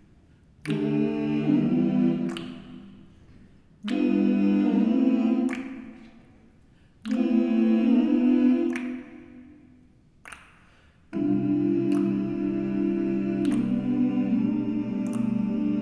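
Men's a cappella vocal ensemble singing sustained chords: three short phrases of about two seconds, each left to ring out and fade in the church's reverberation, then a long held chord from about eleven seconds in.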